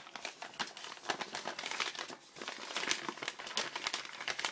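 Crinkling and rustling of something being handled, as a dense, irregular run of small crackles.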